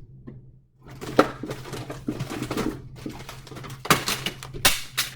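Food packages and containers being handled and put down, rustling with a few sharp knocks and clatters: one about a second in, and two close together near the end.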